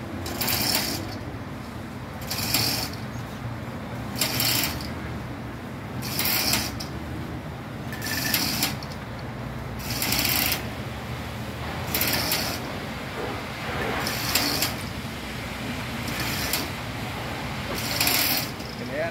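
Lifting gear hoisting a submersible pump's riser pipe from a water well, giving a short mechanical rasp in regular bursts, about one every two seconds, over a low steady rumble.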